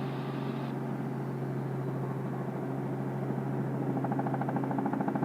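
Robinson R44 Raven II helicopter cabin noise: a steady drone of engine and rotor. About four seconds in, a rapid fluttering pulse joins it.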